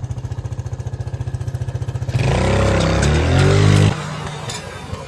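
Four-wheeler (ATV) engine idling with an even pulse, then revved hard for under two seconds starting about two seconds in, the pitch rising and falling before it settles back to idle.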